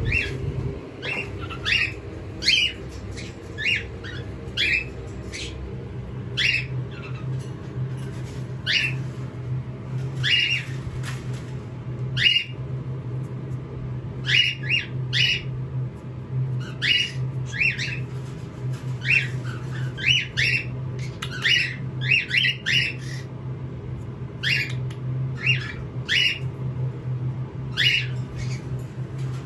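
Small pet parrot calling over and over: short, sharp downward chirps, one or two a second with brief pauses, over a steady low hum.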